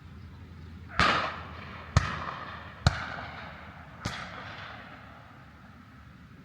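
Four shotgun shots in about three seconds, each sharp crack trailing off in a short echo; the middle two are the sharpest.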